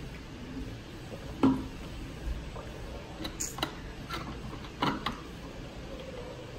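A few scattered light clicks and knocks over a low steady background, the loudest about a second and a half in and a small cluster a little past the middle.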